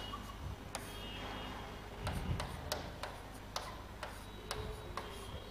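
Light, irregular clicks and taps, a few a second, over a faint steady hum.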